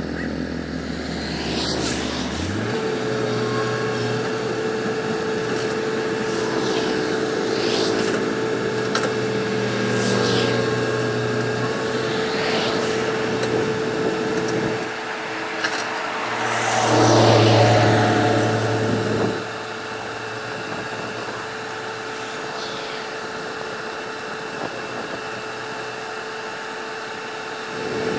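Volvo EC210D excavator's diesel engine running, with a steady whine over it. Other vehicles pass now and then; the loudest pass comes a little past halfway and cuts off sharply.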